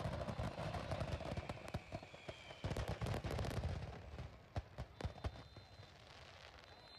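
Display fireworks going off near ground level: a dense barrage of crackling bangs for about three and a half seconds, then thinning to a few separate bangs.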